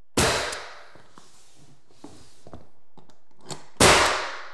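Pneumatic finish nailer firing nails through baseboard trim into the wall, twice, about three and a half seconds apart. Each shot is a sharp crack followed by a hiss that trails off.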